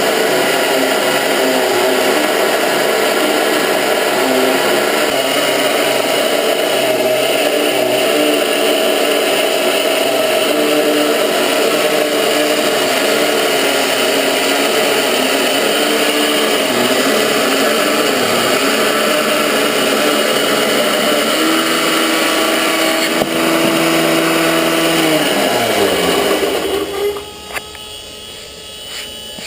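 Petrol chainsaw engine of a homemade chainsaw mill running at full throttle while ripping through dry cherry wood, its note wavering under the load of the cut. About 21 s in the pitch steadies higher as the chain runs free. It then falls away to a much quieter idle near the end.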